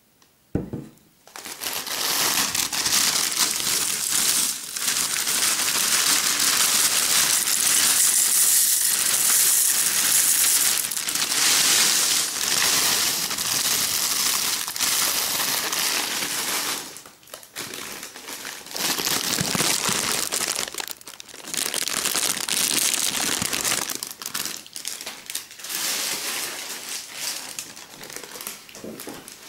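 A single knock, then packaging being crumpled and crinkled close to the microphone, a long continuous crinkling that breaks off briefly, resumes, and then comes in shorter bouts near the end.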